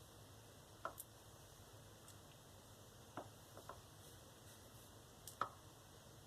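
Near silence broken by a few faint taps and clicks, some in quick pairs, from a silicone spatula against the bowl while glue and glitter are stirred.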